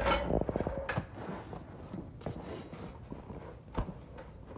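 Scattered metal clicks, knocks and scraping as a pickup's transfer case, just cracked open from the transmission, is handled and worked loose by hand. There is a short rattle at the start and a sharp knock a little before the end.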